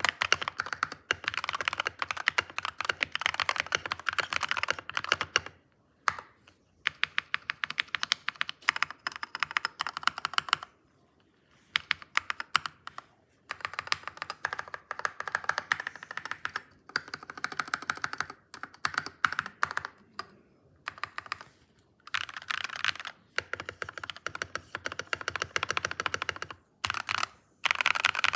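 Typing on a computer keyboard: rapid runs of key clicks in bursts of several seconds, broken by short pauses.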